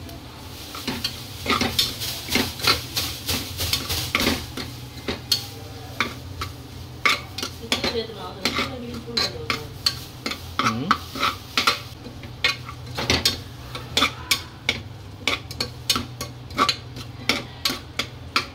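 A metal spoon stirring frying onions and tomatoes in an aluminium pressure cooker, scraping and clinking against the pot about one to three times a second, over a low sizzle.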